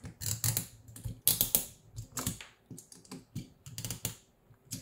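Irregular clicks and taps as a small screwdriver works a set screw in a 3D-printed plastic motor clamp on a stepper motor, the parts knocking in the hands.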